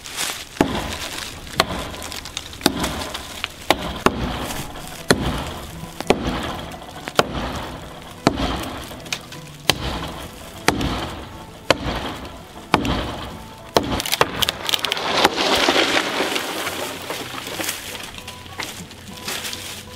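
Hand-forged Trekker axe chopping into a dead tree trunk, sharp strikes about once a second. About 15 seconds in the strikes give way to a longer rushing crash as the tree comes down.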